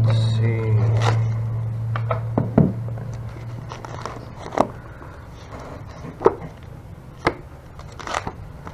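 Pages of a thick spiral-bound report being turned and the booklet handled on a counter: paper rustle and a series of sharp taps about a second apart. A low hum fades away over the first few seconds.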